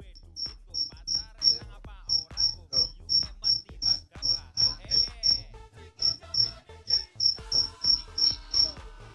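Insect chirping in a quick, steady run of short high-pitched chirps, about three a second, with two brief breaks, over faint background music.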